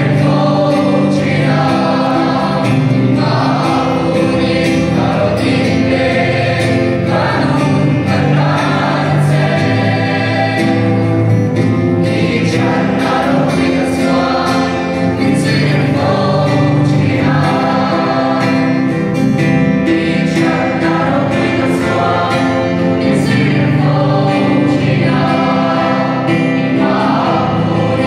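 Mixed youth choir of young men and women singing a Mizo gospel song in parts, accompanied by acoustic guitar.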